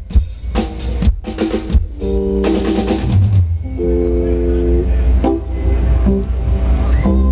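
Live rock band playing through the PA during a sound check: a quick run of drum-kit hits over the first two seconds, then held chords.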